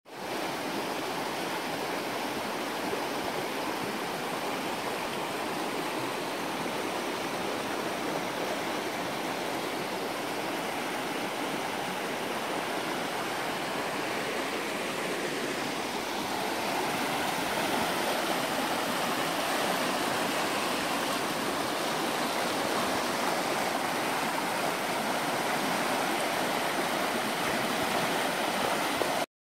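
A small forest stream rushing over rocks in shallow rapids: a steady rush of water that grows a little louder about halfway through and cuts off suddenly near the end.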